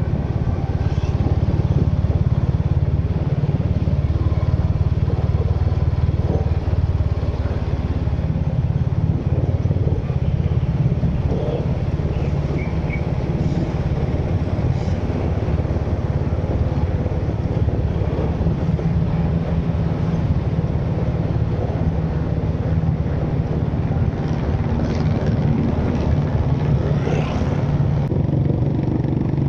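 Road vehicle driving steadily, its engine running and tyres and road noise forming a constant low rumble, with a few brief faint higher sounds from the traffic around.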